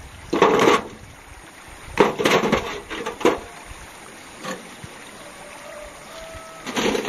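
Several short bursts of clay bricks clinking and a metal wheelbarrow loaded with bricks rattling as it is handled and moved over concrete.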